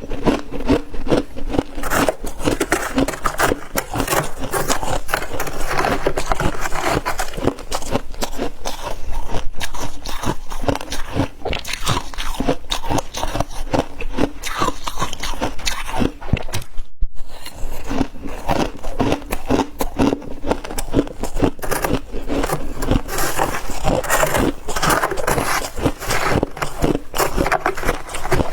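Close-miked biting and chewing of soft, dry freezer frost: a dense, continuous run of crisp crunches, broken by one momentary gap about seventeen seconds in.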